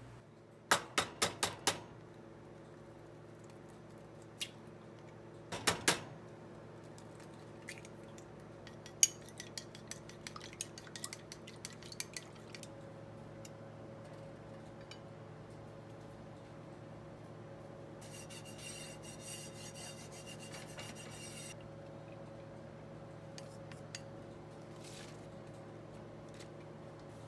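Clinks and taps of cooking utensils against a nonstick frying pan, in clusters over the first dozen seconds, over a steady low hum. A few seconds of hissing come a little past halfway through.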